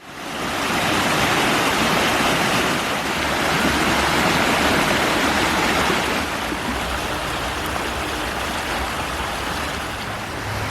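Steady rushing water noise, easing a little about six seconds in.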